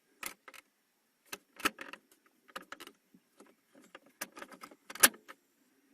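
Irregular clicks and knocks of plastic gear-shift console trim being handled and pressed back into place, with the sharpest click about five seconds in.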